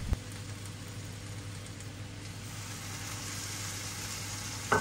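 Minced-meat kebabs sizzling steadily in their own rendered fat in a non-stick frying pan, with no oil added, over a low steady hum. A sharp knock comes right at the end.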